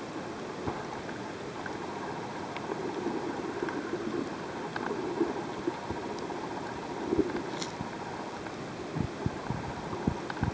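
Muffled underwater noise picked up by a submerged camera: a steady low rush of moving water with a few faint clicks, and short bumps and knocks that come more often near the end.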